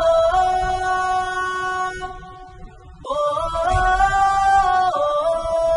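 Background music: a slow melody of long held notes in two phrases, each climbing in small steps, with a short break about two seconds in.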